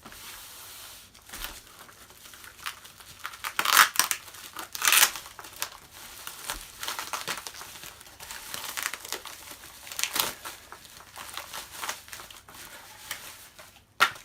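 Packaging crinkling and tearing as a wrapped exercise-machine cushion is unwrapped by hand, in irregular rustles with louder rips about four and five seconds in and again near ten seconds.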